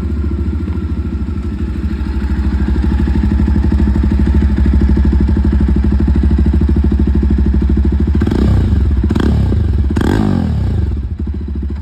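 Jawa 42 Bobber's single-cylinder engine running loud through its exhaust, with three quick throttle blips in the last few seconds. The engine then cuts out near the end, which the owner puts down to the bike's protective shut-off after too much throttle heated it up.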